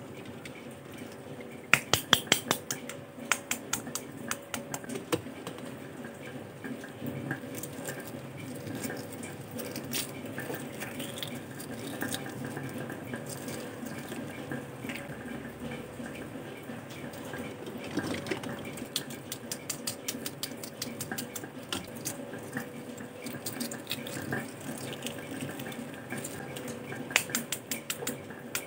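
Boiled eggs being cracked against a stainless steel bowl and against each other, with clusters of sharp taps about two seconds in and again near the end, and scattered shell crackling between as the shells are peeled. A faint steady hum sits underneath.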